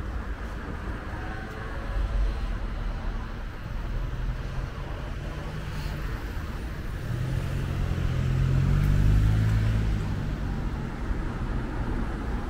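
City street traffic with a steady low rumble. A motor vehicle's engine builds up and passes close by, loudest about nine seconds in, then fades.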